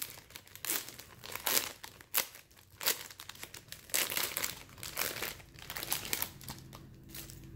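Crinkly plastic packaging bag being handled and opened to take out a squishy toy: an irregular run of crinkles and rustles.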